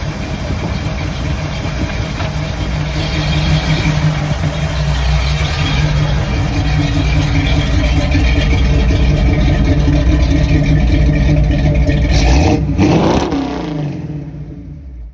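1981 Jeep CJ7's engine running, getting louder a few seconds in and holding there. About twelve seconds in there is a brief sweep in pitch, then the sound fades away near the end.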